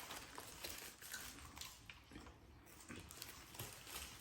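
Faint chewing and wet mouth sounds of people eating fast food, a run of small irregular clicks and smacks.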